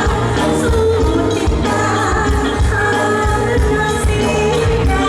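Live Thai luk thung music: a singer's voice over a band with bass and a steady drum beat.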